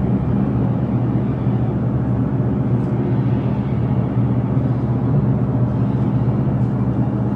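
A steady low rumble with a faint hum, even in level throughout.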